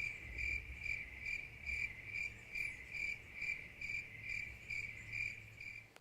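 High, even chirping, a cricket-like pulse repeating about twice a second. It starts and stops abruptly.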